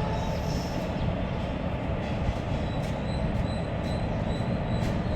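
Passenger train passing at speed: a steady rumble of wheels on rails, with scattered sharp clicks as the wheels cross rail joints.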